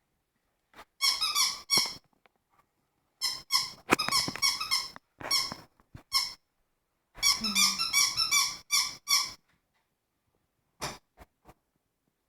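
A dog chewing a rubber squeaky toy, squeezing out rapid high-pitched squeaks in bursts of several at a time with short pauses between.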